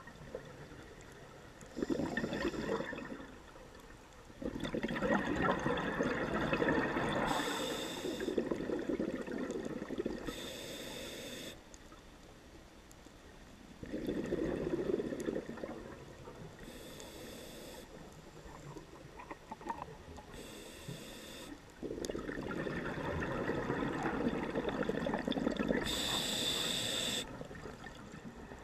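A scuba diver breathing through a regulator: short hissing inhalations and longer bubbling rushes of exhaled air, repeating every several seconds.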